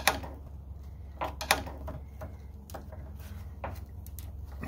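Several sharp clicks and knocks at uneven intervals, from a socket wrench on an extension working 8 mm bolts on a pickup's radiator support.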